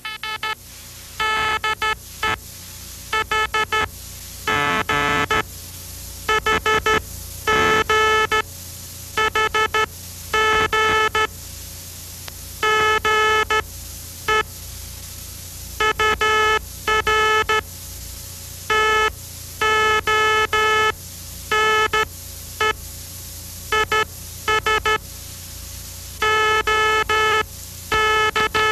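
Morse code from an early spark-coil amateur transmitter, heard through a crystal detector receiver: a buzzy, ringing tone keyed on and off in dots and dashes. A steady low hum and hiss runs underneath.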